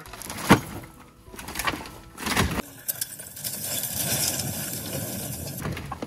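An old wooden shed being pulled apart by hand: sharp cracks and knocks of boards breaking loose, the loudest about half a second in, then about three seconds of continuous scraping and rattling of the wreckage.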